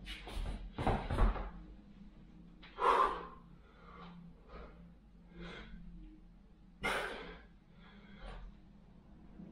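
A man breathing hard through the reps of a standing dumbbell shoulder press: short noisy exhales every second or two, the loudest two about three and seven seconds in. Near the start come a couple of knocks as the hex dumbbells are lifted off the floor.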